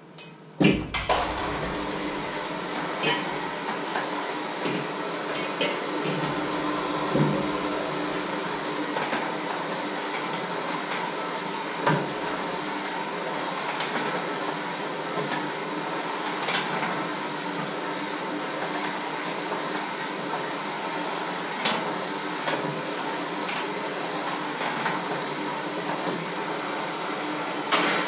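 A steady mechanical whir, switched on about a second in and off near the end, with occasional clinks and clicks of kitchen utensils over it.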